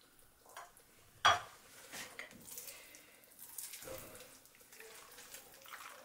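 Hands working the raw skin of a stuffed turkey, pulling and tucking it: soft, irregular wet squelching and rustling, with one sharp knock a little over a second in.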